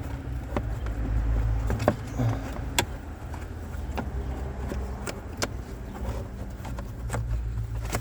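Sharp plastic clicks and knocks, scattered irregularly, as the cabin air filter and its cover behind the glove box are handled and snapped into place, over a steady low rumble.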